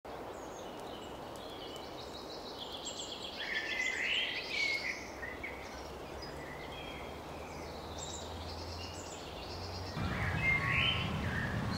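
Outdoor ambience: birds chirping and calling over a steady background hiss, with a busy run of calls about three to five seconds in and more near the end. About ten seconds in, a louder low rumble joins the background.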